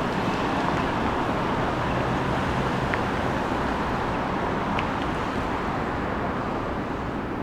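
Steady rumble of passing vehicles, easing slowly, with two faint brief clicks about three and five seconds in.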